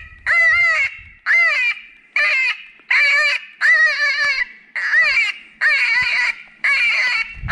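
Predator call sounding a high, whining distress cry over and over, about one cry every 0.8 seconds, each cry bending in pitch, to lure in coyotes or foxes.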